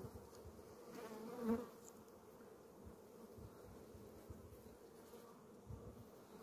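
Honeybees humming faintly over an open hive while a brood frame is lifted out; the hum swells briefly about a second and a half in.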